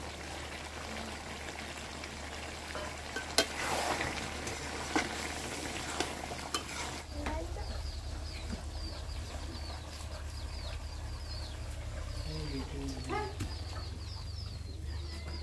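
Chicken and greens frying in a metal kadai while being stirred: a steady sizzle with a few sharp clinks of the spoon against the pan. About halfway through the sizzle gives way to quieter background with birds chirping and a chicken clucking.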